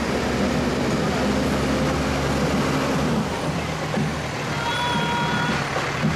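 Diesel engine of a fire tanker truck rolling slowly past, its note dropping about three seconds in. A steady beeping tone comes in about four and a half seconds in.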